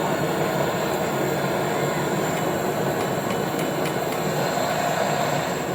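Gas brazing torch flame hissing steadily while brazing copper pipe on a fridge compressor.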